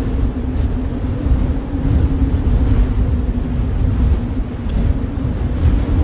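Steady snowstorm wind, a deep constant rumble with a faint low howling tone over it.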